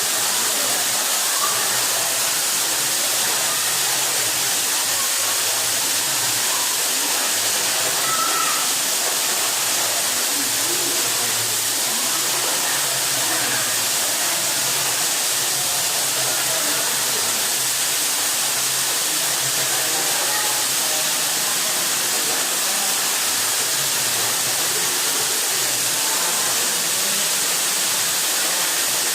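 Waterfall: falling water making a steady, unbroken rushing hiss.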